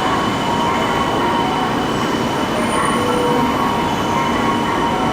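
E2 series Shinkansen train arriving at the platform: a steady rolling rumble with faint high tones coming and going over it.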